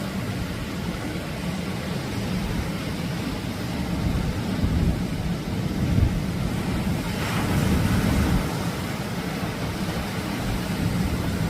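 Atlantic surf washing onto the beach, with wind rumbling on the microphone; a wave breaks more loudly about seven seconds in.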